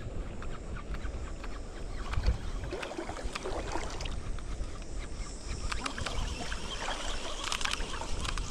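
Shallow water lapping and splashing, with scattered small clicks and a low wind rumble on the microphone.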